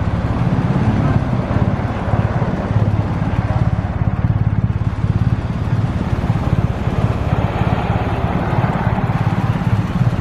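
Vehicle engines running at low speed in slow street traffic, a steady low throb with general street noise.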